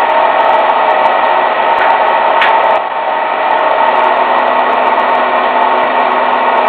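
Battery-powered electric motor belt-driving a generator pulley, running steadily with a constant tone over the mechanical noise. A brief sharp click with a short rasp comes about two and a half seconds in.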